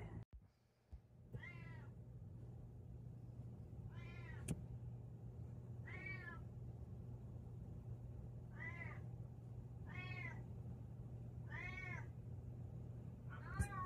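A cat meowing in short, quiet calls, about seven in a row spaced one to two seconds apart, each rising and then falling in pitch, over a steady low hum.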